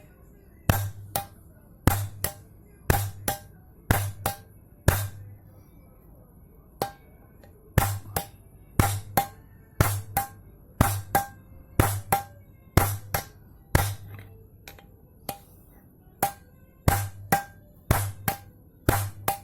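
Hammer blows driving a Mazda 626 GE front hub bearing into its steering knuckle (seated until the retaining-ring groove clears), struck mostly in quick pairs about once a second with short metallic ringing, pausing twice.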